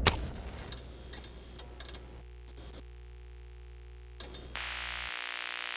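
Electronic intro sound effects: a sharp hit, then a run of irregular ticks and clicks over a steady synthesized hum and tones, with a hissing layer coming in about four and a half seconds in.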